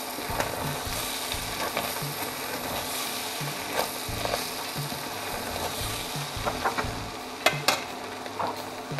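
Ground meat sizzling as it browns in a stainless steel pot, stirred with a spoon that scrapes and clicks against the pot. There are two sharp knocks of the spoon on the pot near the end.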